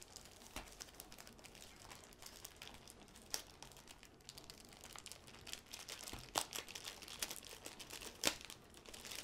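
Clear plastic sleeve crinkling and crackling as it is pulled off a rolled canvas, irregular sharp crackles throughout, the loudest about three, six and eight seconds in.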